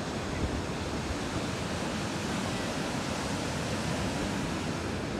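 Ocean surf breaking on the shore, a steady rushing wash.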